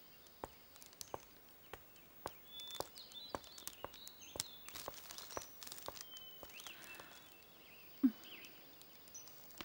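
Faint footsteps on a park path, about two steps a second, with short high bird chirps from the trees. A brief low sound about eight seconds in is the loudest moment.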